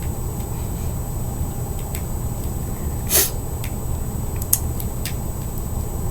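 A single sharp sniff about halfway through, with a few small metallic clicks from a skate tool working the hardware of a fingerboard truck, over a steady low hum.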